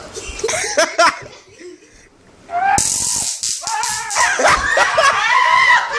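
A handheld stun gun crackling with rapid sharp snaps, starting suddenly about three seconds in, while voices yell and laugh over it.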